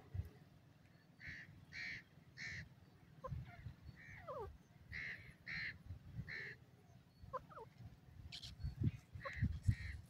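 Grey francolin calling: a repeated series of high notes in three groups of about three, a few seconds apart, with faint falling notes in between. Low rumbling bumps grow near the end.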